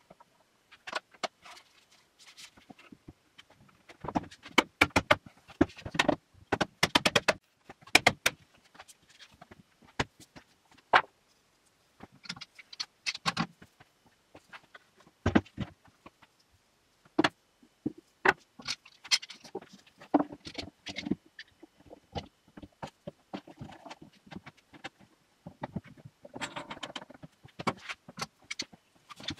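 Spruce boards being handled and fitted together on a workbench: irregular sharp wooden knocks and clatter, densest and loudest between about four and eight seconds in.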